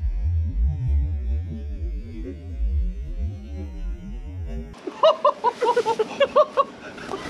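Slowed-down tannerite blast ripping through a beaver dam: a deep, low rumble. About five seconds in it cuts off abruptly, giving way to a quick run of loud, sharp cracks and short whoops.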